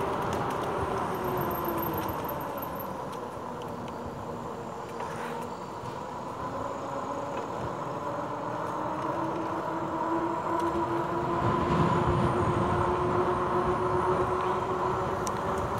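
Rad Power Bikes RadRover 5 e-bike's rear hub motor whining steadily under way, over wind and tyre noise; the whine rises a little in pitch and gets louder about nine seconds in.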